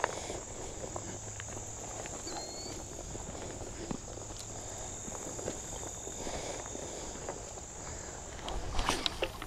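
A steady high buzz of insects in the riverside grass, with scattered light clicks and crunches. The clicks and crunches come in a louder cluster near the end.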